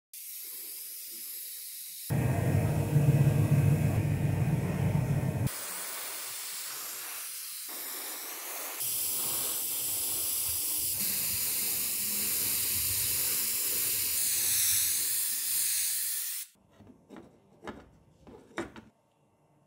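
Paint spray hissing steadily, with a louder stretch carrying a low rumble early on, then cutting off near the end and followed by a few faint clicks.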